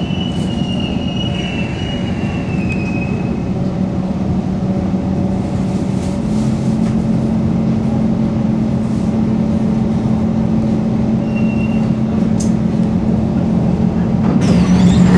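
Interior of a Singapore MRT North East Line train slowing into a station: steady electric motor hum and rail rumble, with a thin high wheel squeal that fades out in the first three seconds. Near the end the sound grows louder as the train stops and the doors open.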